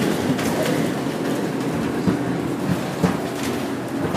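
Inside a moving bus: the steady rumble of engine and road noise, with several sharp knocks and rattles at uneven intervals.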